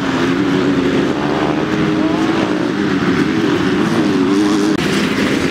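Racing engines running loudly, their pitch wavering up and down as the throttle is worked, with a brief dip in the noise near the end.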